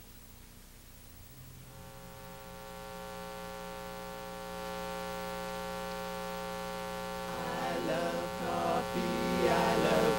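Steady electrical mains hum and buzz from the sound system, stepping up louder twice, about one and a half and four and a half seconds in. Near the end a vocal group starts singing a cappella over the hum.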